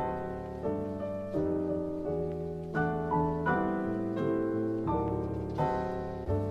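Soft instrumental background music on piano, with a new chord struck about every three quarters of a second, each one ringing and fading.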